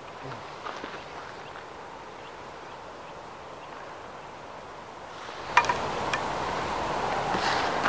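Red deer stags' antlers clacking as they fight: a few faint clicks early, then two sharp knocks about five and a half and six seconds in, the first the loudest. Under them a steady hiss of wind and grass grows louder shortly before the knocks.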